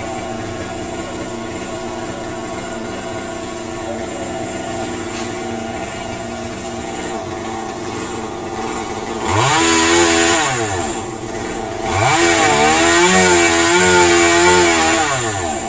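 Gasoline chainsaw cutting into a Sao tree trunk. After a steady hum, it revs up about nine seconds in and drops back, then revs again about twelve seconds in and is held for about three seconds, its pitch wavering under the load of the cut, before it falls off near the end.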